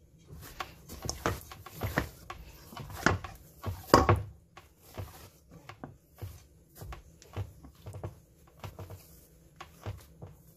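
Bread dough being kneaded by hand in a stainless steel bowl: irregular soft thumps and knocks as the dough is pressed and folded and the bowl shifts. The loudest knock comes about four seconds in.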